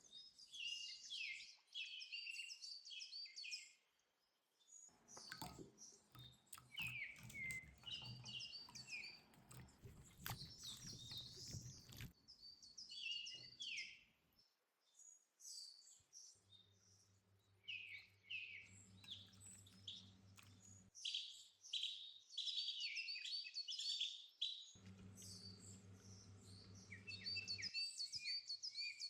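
Birds chirping and singing in short repeated phrases with pauses between them. A low steady hum comes in twice, once around the middle and once near the end.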